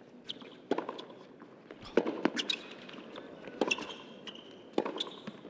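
Tennis rally on a hard court: sharp racquet strikes on the ball every second or so, with short high shoe squeaks on the court between them.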